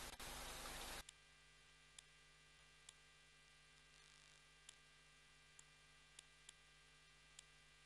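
Near silence: a faint, steady hum with sparse, faint ticks, irregularly spaced about half a second to a second apart. For about the first second there is a louder, even hiss of outdoor background, which cuts off abruptly.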